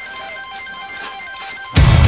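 Background music: a quiet intro of repeating, bell-like tones, then the full band comes in suddenly and loudly near the end.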